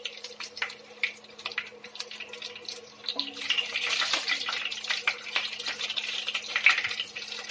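Nigella seeds, bay leaves and broken dried red chillies sizzling and crackling in hot oil in a kadai. The crackle gets louder and denser about three seconds in, as the spices are stirred with a spatula. A steady low hum runs underneath.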